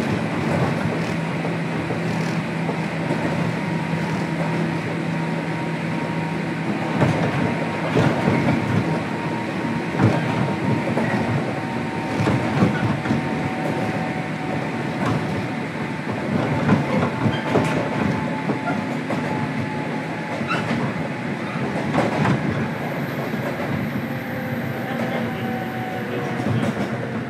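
JR Kyushu 103 series electric train running along the track, heard inside motor car MoHa 102-1518: a steady rumble with occasional clicks and clacks from the wheels. A low hum stops about six seconds in.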